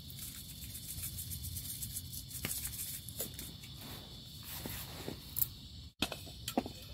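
Night insects such as crickets chirring in a steady high-pitched chorus, with a few faint clicks and taps.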